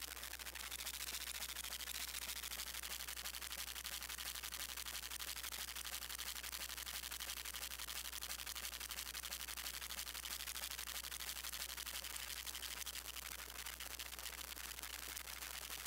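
Modular synthesizer playing a dense, crackling noise texture of fast fine clicks over a steady low hum.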